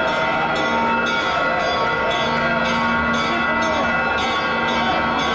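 Church bells pealing in rapid, repeated strikes, about two or three a second, over the voices of a large crowd; the bells ring out for the Holy Fire as it is spread through the crowd on candles.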